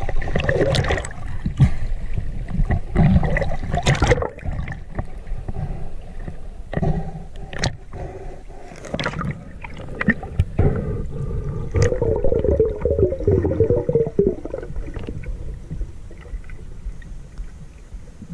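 River water splashing at the surface. After about four seconds the sound turns muffled, as heard from underwater, with scattered clicks and a bubbling, warbling stretch a little past the middle.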